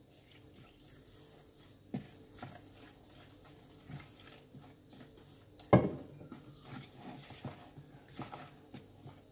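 A fork stirring flour-and-water batter in a plastic bowl, heard as scattered soft clicks and scrapes against the bowl. There is one louder knock about six seconds in, then a run of quicker small clicks.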